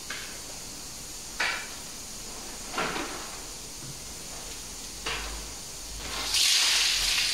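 Wet wash mitt wiping across a foam-covered car roof: short swishing strokes about every second and a half, then a longer, louder hiss near the end.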